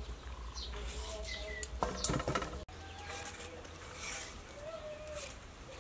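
Small birds chirping in short, quick falling calls, with a brief louder sound about two seconds in and an abrupt break at about 2.7 s.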